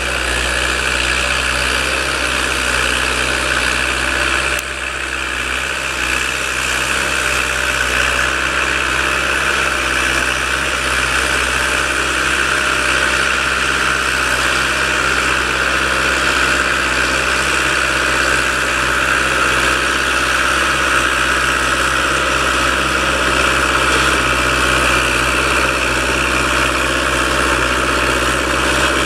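Fiatagri 80-90 tractor's diesel engine running steadily under load while pulling an Alpego KD5 subsoiler through the ground. There is a brief dip in loudness about four and a half seconds in, and the engine grows gradually louder toward the end.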